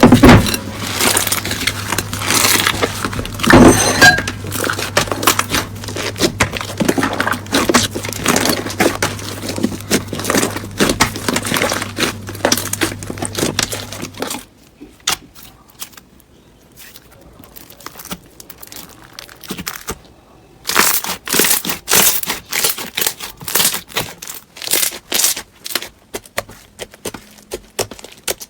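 Slime being squeezed and pressed by hand, making a dense run of crackling, popping clicks. About halfway through it cuts to a quieter stretch, and several seconds later sharper separate pops start again.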